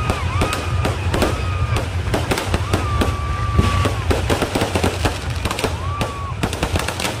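Aerial fireworks and firecrackers going off without pause: a dense run of sharp cracks and pops over a low rumble. A high, steady whistle-like tone sounds over it about five times, each time for half a second to a second.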